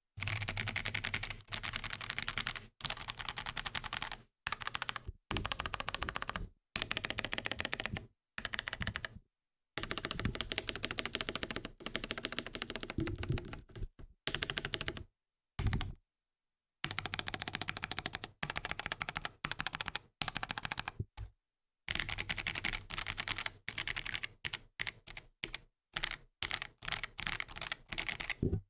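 Fast typing on a KBD67 Lite R3 custom mechanical keyboard with Kailh Box Black linear switches and PBT keycaps: a dense clatter of keystrokes in runs of a few seconds, broken by short silent gaps.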